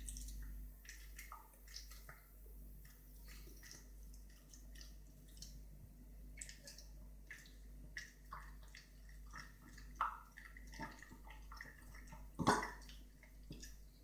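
A dog making a string of small wet clicking and smacking sounds from the mouth and throat, with one louder, harsher burst about twelve seconds in; the owner wonders whether these are signs of kennel cough.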